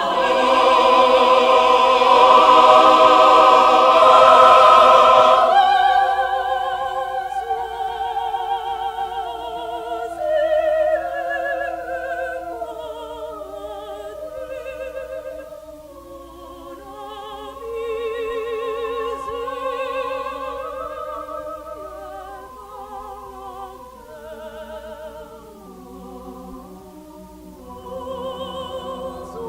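Unaccompanied mixed choir singing in French. The first five or so seconds are a loud full-choir passage; after that the singing turns softer, with vibrato voice lines moving over held choral notes.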